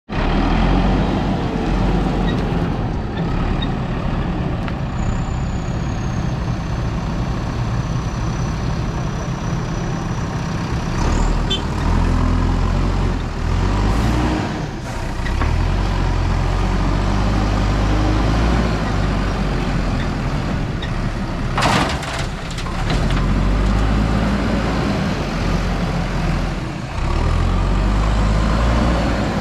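Heavy diesel engine of a JCB 3DX backhoe loader running and revving up and down under load while loading gravel. A short, loud burst of noise comes about three quarters of the way through.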